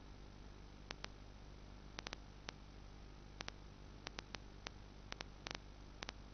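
Hiss and low steady hum on the audio channel of an analog FPV video link (Boscam transmitter and receiver), broken by sharp clicks that come singly, in pairs and in quick clusters of three.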